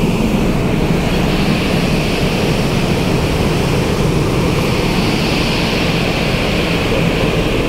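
Steady mechanical rumble with a hissing edge from a passenger ferry's engines and smoking funnel exhaust, heard on the open deck.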